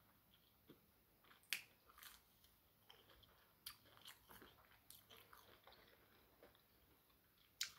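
A person faintly chewing and biting fast food, with a few short sharp clicks from the mouth scattered irregularly through.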